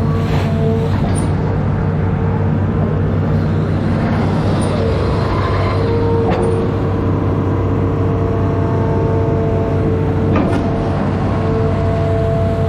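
Amphibious excavator's diesel engine running steadily under work, with a high whine that fades in and out and a few brief knocks, around six and ten seconds in.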